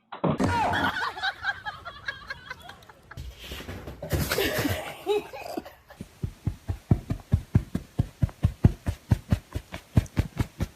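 People laughing, followed in the second half by a rapid, even series of pulses, about four a second.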